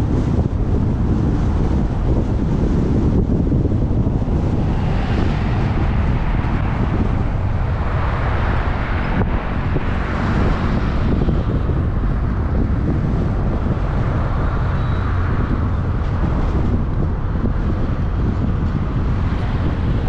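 Wind buffeting the microphone of a camera moving along a road, over steady road and traffic noise. The noise grows brighter in the middle as other vehicles pass.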